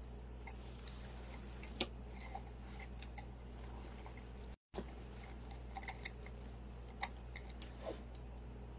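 Faint, scattered clicks and rustles of hands working ribbon and chenille stems on a wreath, over a steady low hum, with a brief cut-out of all sound near the middle.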